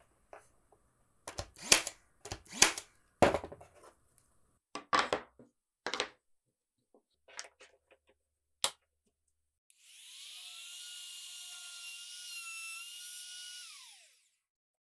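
Several sharp wooden knocks and clatters as a wooden stop is repositioned on a router jig and the jig is clamped down. Then a compact trim router starts with a rising whine, runs steadily for about four seconds cutting a keyhole slot, and winds down with a falling whine.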